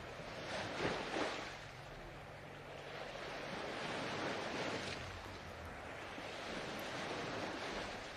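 Ocean surf: waves washing in and drawing back, the soft rush swelling and fading about every three seconds.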